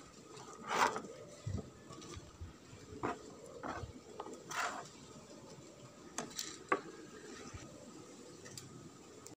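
Faint, scattered snaps and soft knocks of leafy green stems and leaves being torn and broken by hand on a plastic cutting board.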